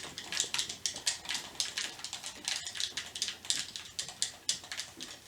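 Rapid, irregular light clicking and tapping, several clicks a second.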